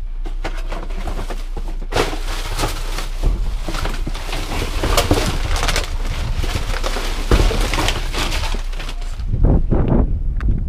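Plastic trash bags and plastic bottles rustling and crinkling as a gloved hand rummages through a dumpster full of garbage, a dense crackle of many small clicks. Near the end it gives way to footsteps on pavement.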